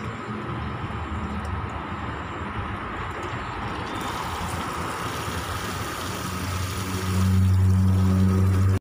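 Water from a garden hose pouring and splashing into a plastic bucket of dark fertiliser solution as a hand stirs it. A strong low hum comes in about seven seconds in.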